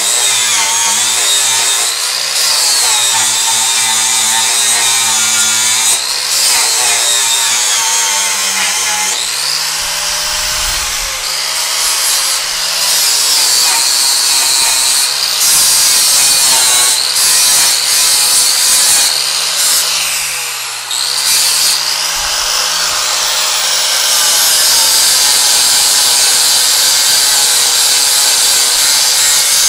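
Angle grinder with a flap disc grinding down a weld on a steel bumper, sparks flying. Its motor whine wavers in pitch as the disc bears on the metal.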